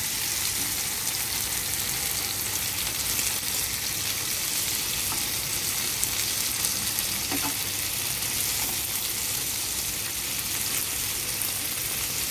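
Marinated chicken pieces sizzling steadily in oil in an uncovered nonstick frying pan, with a few faint clicks of metal tongs turning them.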